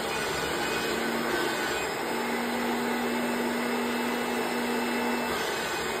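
1990 Kirby Generation upright vacuum cleaner running while it is pushed over a rug, its motor making a steady hum.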